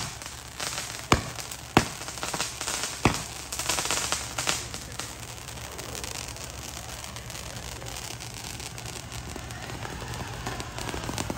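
Consumer fireworks going off: four sharp bangs in the first three seconds amid dense crackling, then a steady crackling hiss of burning sparks.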